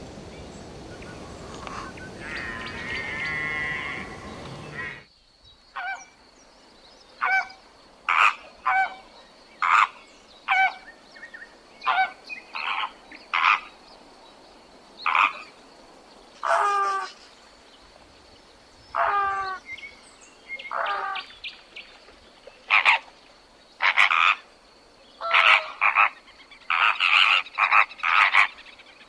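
Frog calling: short croaks repeated at irregular intervals, sometimes in quick pairs or clusters. The first five seconds hold a different noisy animal recording with a brief call, which cuts off abruptly before the croaks begin.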